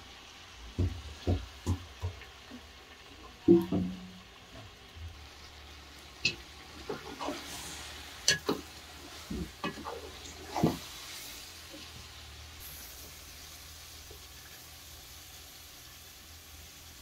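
Julienned carrots and meat frying in hot oil in a large metal pot, sizzling steadily, while a metal ladle stirs them with knocks and scrapes against the pot. The knocks come thickly over the first ten seconds or so, the loudest about three and a half seconds in, then thin out and leave mostly the sizzle.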